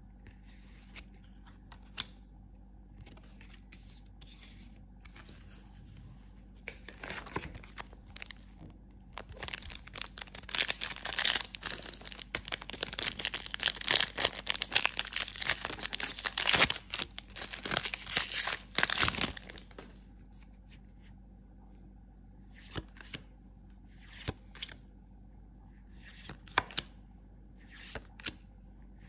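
A foil trading-card booster pack being torn open and crinkled in the hands: a long, loud stretch of crackling and tearing in the middle. Before and after it come soft, scattered flicks and clicks of cards being handled.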